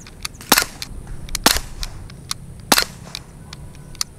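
Daisy Powerline 5501 CO2 blowback BB pistol firing three shots, each a sharp crack, about a second apart, with fainter clicks in between.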